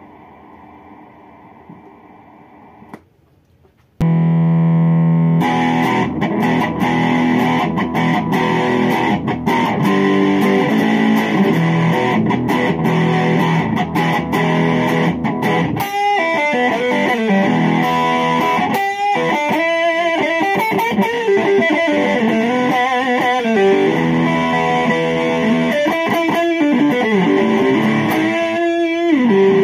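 IYV ILS-300 Les Paul-style electric guitar played through a small amp's distortion channel. A faint steady amp hum comes first; about four seconds in, loud distorted chords start, turning into lead lines with string bends from about halfway.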